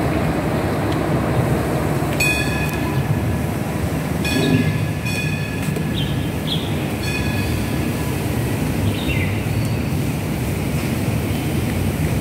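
A light rail train passing with a steady low rumble, with short clusters of high ringing tones about two, four and a half and seven seconds in.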